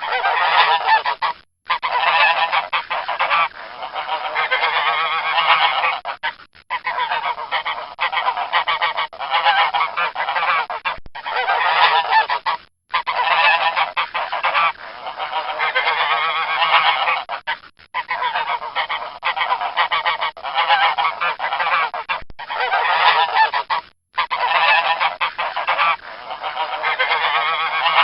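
Geese honking in a dense, continuous run of calls, cut by a few short silences several seconds apart.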